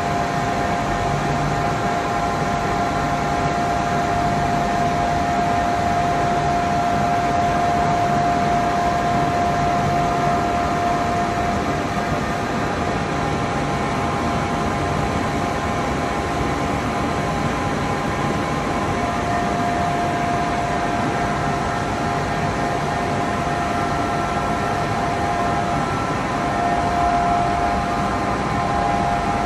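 Steady drone of running colour-coating line machinery for aluminium coil: motors and rollers with a constant whine over an even noise. The whine fades for several seconds about halfway through, then returns.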